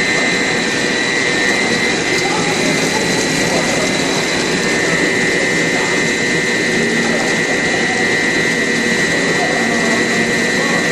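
Snack-food production line machinery running: a loud, steady mechanical noise with a constant high whine.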